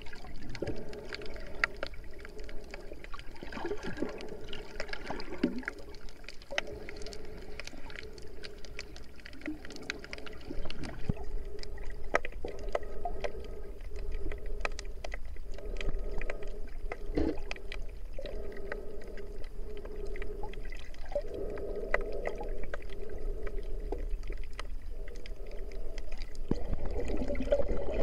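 Underwater sound through an action camera's waterproof housing: muffled water movement and gurgling, with many scattered small clicks and a low murky band that swells and fades every few seconds.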